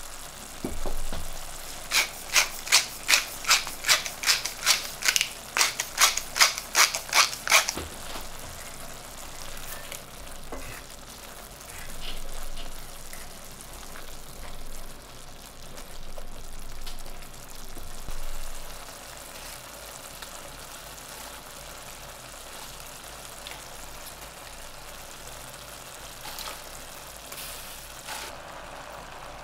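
Chickpea curry simmering and sizzling in a stainless steel pan. From about 2 s to 8 s, a rock-salt grinder is twisted over it, giving about 14 sharp grinding clicks, two or three a second. Later, a spatula stirs the chickpeas in the pan.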